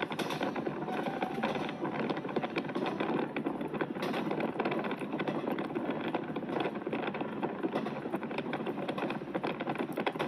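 West Express Ginga train running, heard from inside the carriage: a steady, dense rattle and rumble of the moving train.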